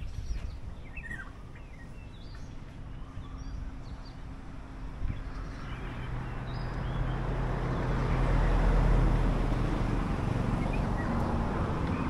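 A few short bird chirps in the first few seconds, then a vehicle goes by: a rising rush of noise with a low engine hum that swells to its loudest about nine seconds in.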